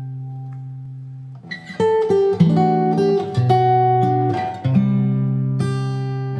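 Instrumental introduction of a ballad played on guitar: a held chord fades for about a second and a half, then plucked notes and new chords come in.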